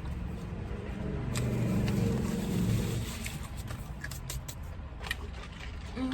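A long, low burp lasting about two seconds, starting about a second in. A few sharp clicks of chewing crunchy pizza crust follow.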